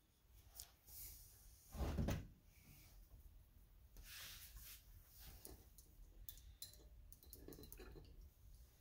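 Faint handling sounds from painting at a table: a soft thump about two seconds in, then light rustling and small taps as a paintbrush is blotted on a paper towel.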